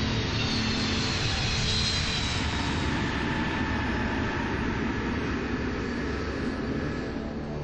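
Lockheed C-5 Galaxy's four jet engines running loud as the transport touches down and rolls out on the runway, with a high whine falling in pitch over the first couple of seconds. The noise eases off near the end.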